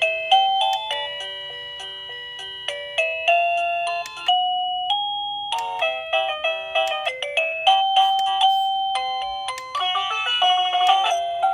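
Liztek wireless doorbell receiver playing an electronic chime melody: a tune of quick, ringing notes, each struck and then fading, with a faster flurry of notes near the end.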